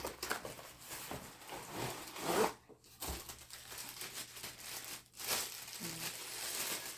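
Packaging rustling and crinkling as a part of the ring light kit is unwrapped, with an irregular crackle and a louder tearing rustle about two and a half seconds in.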